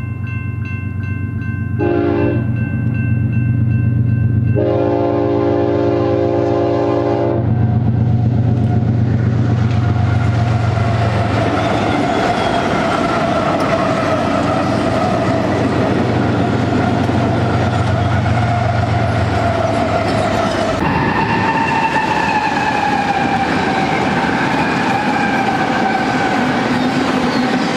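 BNSF GE ES44C4 diesel locomotives sounding the horn for a grade crossing, a short blast then a long one, over the low rumble of their engines. The locomotives then pass close by with engine drone and steel wheel and rail noise, and about 21 seconds in the sound switches abruptly to another set of locomotives and rolling double-stack cars passing.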